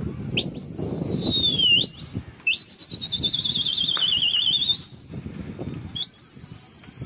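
A person whistling loudly in three long, shrill notes. The first slides down at its end, the second warbles up and down for about two and a half seconds, and the third is held steady from about six seconds in, with a quick dip near the end.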